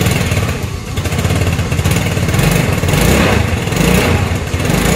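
Easy Ride scooter engine idling with a fast, even beat, started on the electric starter now that its bendix drive has been replaced.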